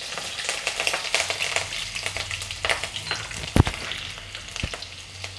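Cumin seeds, whole spices and slit green chillies sizzling in hot oil in a stainless-steel kadhai, with rapid sharp pops and spatters throughout. A low thump comes about three and a half seconds in, and a softer one a second later.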